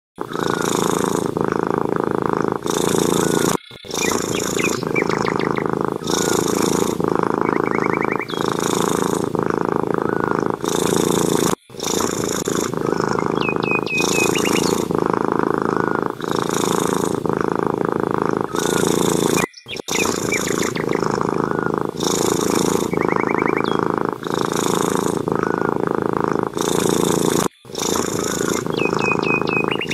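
Domestic cat purring loudly and close, pulsing with each breath, with a few short high chirps now and then. The same stretch of about eight seconds repeats, with a brief dropout each time round.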